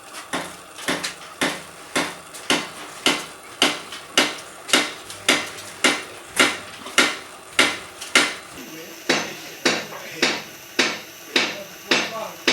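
Steady hammer blows with a metallic clink, about two a second.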